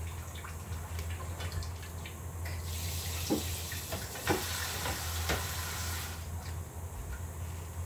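Water running into a kitchen sink for about three seconds in the middle, with a few light knocks, over a steady low hum.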